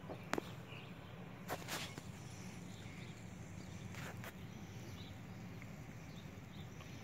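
Outdoor ambience with a steady low rumble, a sharp click about a third of a second in, and two brief rustles around two and four seconds in, with faint short high chirps now and then.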